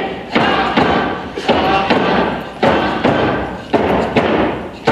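Hide hand drums struck in a steady beat, roughly one strike a second, with voices singing over them.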